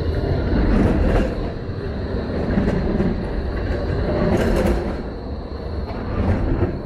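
A train passing close by: a loud, steady low rumble that swells and eases in waves and begins to fade near the end.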